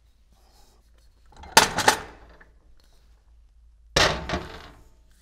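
Metal clanks as a pump's motor and metal motor adapter are lifted off the tie-rod studs and set down on a metal bench: a cluster of knocks with a short ring about a second and a half in, and another about four seconds in.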